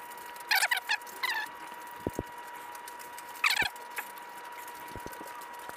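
A wrench clicks lightly and sparsely against the reed-cage bolts of a two-stroke dirt bike engine as they are tightened by hand. Three short, high, wavering squeaks come near the start and about three and a half seconds in, over a faint steady high tone.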